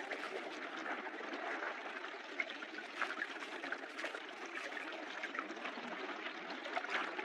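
Underwater ambience in shallow sea: a steady wash of water noise with many faint scattered crackles and ticks.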